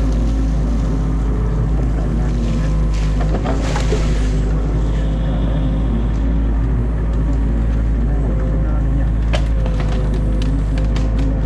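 Excavator diesel engine running steadily, heard from inside the cab, with branches of a beaver dam cracking and snapping as they are pulled apart. A cluster of sharper cracks comes about three to four seconds in, and one loud snap a little after nine seconds.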